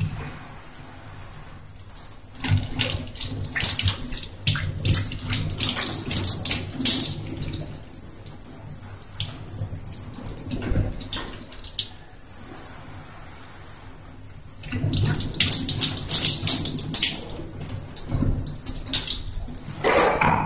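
Water from a stainless scrub sink's gooseneck tap running and splashing over hands and forearms as they are rinsed during a surgical hand scrub. The splashing grows louder in two spells, a few seconds in and again near the end.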